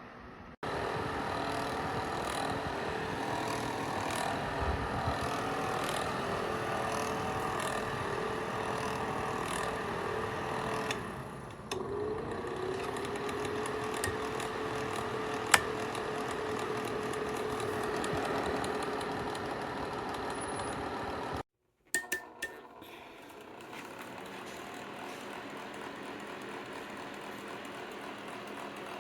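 A JNDRO ceramic space heater's fan running steadily with a hum, on its lowest setting. There is a brief cut-out with a few clicks about 22 seconds in, and after it the hum is quieter and lower.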